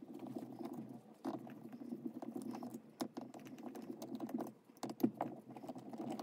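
Screwdriver working the top-cover screws out of a Solex 34 PICT-4 carburetor: a fast, irregular run of small metallic clicks and scrapes, played sped up.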